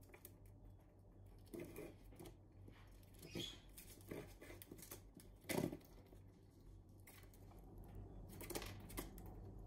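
A Eurasian red squirrel gnawing and tearing at the scales of a large cedar pine cone, giving scattered faint crackles, scrapes and taps, with one louder knock a little past halfway.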